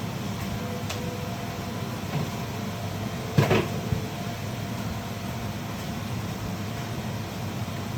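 A steady kitchen hum, with a single sharp clatter about three and a half seconds in that rings briefly.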